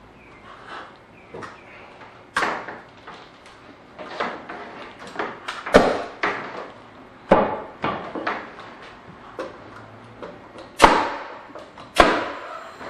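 Pneumatic nail gun shooting nails into 2x6 framing at the joist hangers: five sharp shots at uneven intervals, with lighter knocks of the lumber being handled in between.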